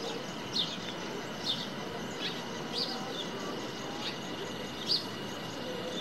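Cicada song as a steady, thin, high drone, with short high chirps that fall in pitch standing out over it about once a second at uneven intervals.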